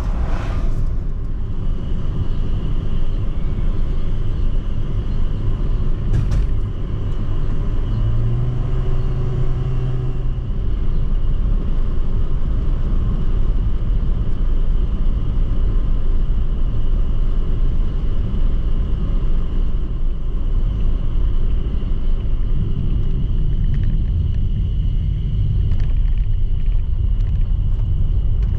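Strong wind buffeting the microphone, a loud steady low rumble, with a faint steady high tone above it and a brief pitched hum about eight seconds in.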